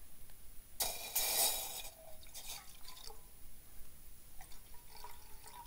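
Water poured from a plastic bottle into a small metal pot over a campfire: a short splashing pour lasting about a second, starting about a second in, followed by faint drips.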